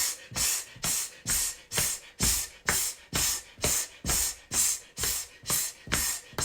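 Feet stamping in a steady rhythm, about two stamps a second, each with a forceful breath out, in a qigong purging exercise.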